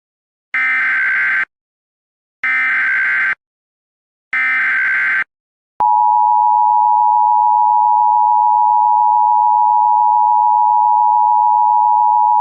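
Emergency Alert System alert opening: three short bursts of SAME header data, each about a second long and evenly spaced, then from about six seconds in the steady two-tone EAS attention signal, which holds without a break.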